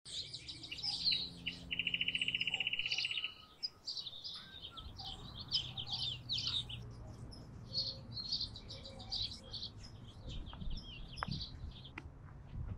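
Small birds chirping and twittering over and over, with a dry buzzing trill about two seconds in that lasts a second and a half. A few soft footsteps on dry ground near the end.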